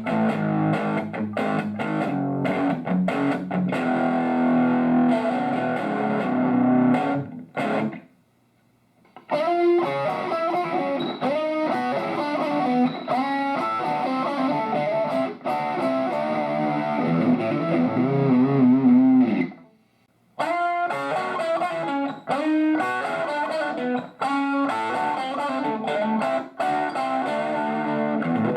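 Electric guitar played through a small Fender valve combo amp with two EL84 power tubes, in three passages of notes and chords broken by two short silences, about eight and twenty seconds in.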